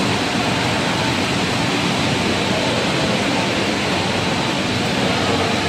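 Machinery of a breakfast-cereal processing line running, making a steady, even rushing noise with no breaks.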